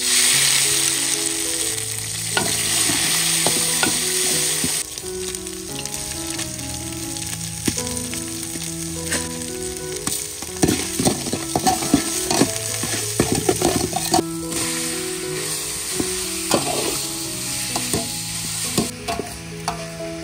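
Minced spice paste dropped into hot oil in a large aluminium pot, setting off a sudden loud sizzle that eases after about five seconds into a steady frying hiss. Clicks and scrapes of a metal spoon stirring against the pot come through in the middle.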